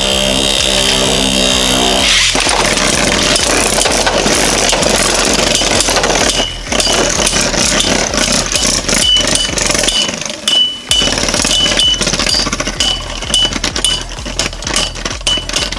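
Two Beyblade Burst spinning tops, one a heavy 3D-printed custom, spinning and clashing in a plastic stadium: a loud, steady rattling scrape with rapid clicks of impacts. A whirring tone is heard in the first two seconds after launch.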